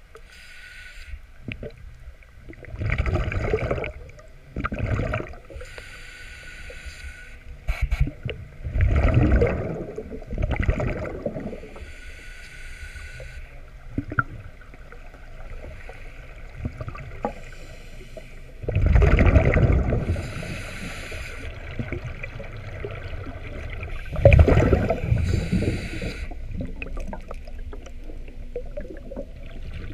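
Scuba diver breathing through a regulator underwater: a hissing inhale through the regulator, then a loud bubbling rush of exhaled bubbles, repeated over several breaths.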